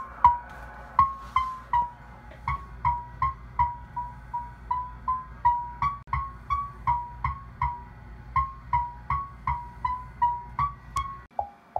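Yaesu FT-2000 HF transceiver receiving a strong JT65 digital signal on the 15 m band: a string of short tone pips near 1 kHz, about three a second, each starting with a click and stepping slightly in pitch from one pip to the next, over a low hum. The uploader suspects a station running extreme power on JT65. Near the end the hum stops and the pips drop lower in pitch as the receiver is retuned.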